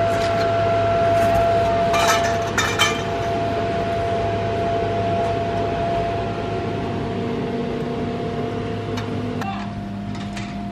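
Electric inflation blower of a bounce house running steadily, a constant hum and rush of air as it fills the inflatable, with a few sharp clicks about two to three seconds in.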